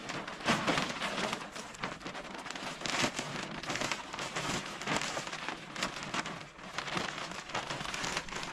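Large clear plastic sheet rustling and crackling continuously as it is spread out and shaken by hand.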